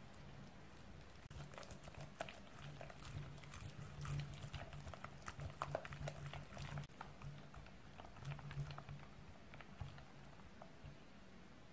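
Wire hand whisk stirring thick, wet cake batter in a glass bowl: irregular quick clicks and scrapes as the wires tap and drag against the glass through the batter.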